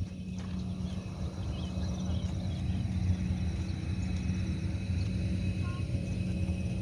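Steady low mechanical hum, with a few faint bird chirps above it.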